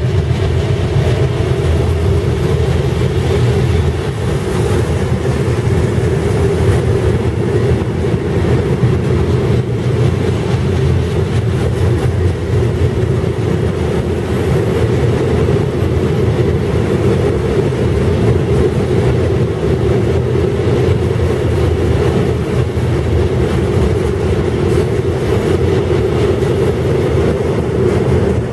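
Freight train of open box wagons rolling past behind a DB Railion electric locomotive: a steady rumble of wheels on rails. The noise stays at the same level and does not die away when the last wagon passes near the end.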